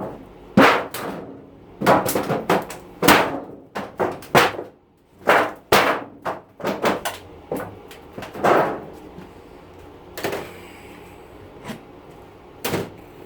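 Irregular series of about a dozen sharp metal bangs and knocks, some briefly ringing, as a dishwasher's sheet-metal casing is knocked and pried apart; they thin out near the end.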